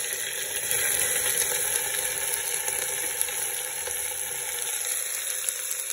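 Chopped red onions sizzling steadily in hot mustard oil in an aluminium pressure cooker as they are poured in.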